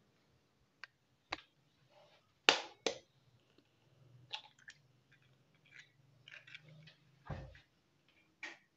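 A series of short knocks and clicks of kitchenware being handled: a ceramic bowl set down on a wooden board, then an egg tapped against the bowl and cracked open into it. The loudest knock comes about two and a half seconds in, and a deeper thud about seven seconds in.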